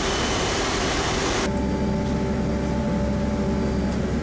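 Steady mechanical engine drone with a loud rushing hiss; about a second and a half in the hiss cuts off abruptly, leaving a steadier hum with several held tones.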